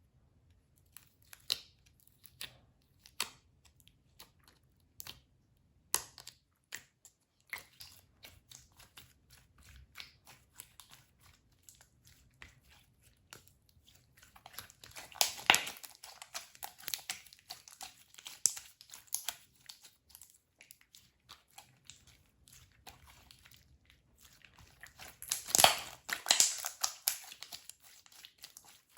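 Slime being squished, poked and stretched by hand: scattered sticky clicks and pops, with two denser bouts of crackling, one in the middle and one near the end.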